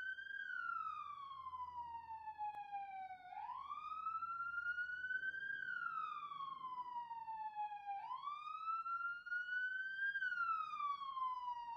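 Emergency-vehicle siren in a slow wail, its pitch sweeping up and then down about once every four to five seconds.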